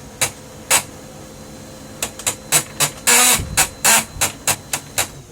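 Brother MFC-L2740DW laser printer running a print job with gear noise, a fault in its drive mechanism: a string of sharp clicks and knocks that comes faster from about two seconds in, with a louder rasping burst about three seconds in, over a faint steady whine.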